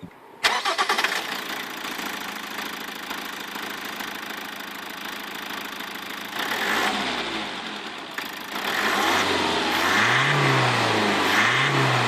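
Toyota RAV4's 2-litre inline-four turbo diesel starting up about half a second in and settling into a steady idle. Near the end it is revved briefly twice, the pitch rising and falling each time.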